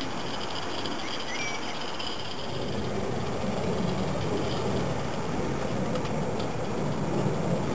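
Accucraft Edrig live-steam garden-railway locomotive running along the track with a train of small wagons, growing louder about three seconds in as it approaches.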